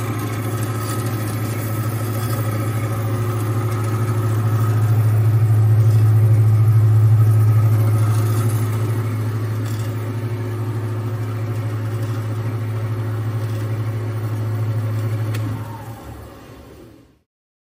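Jaespa W-260 horizontal band saw with its 2-horsepower motor running: a steady low hum. About fifteen seconds in there is a click, and the saw then winds down and stops, its pitch falling as it dies away.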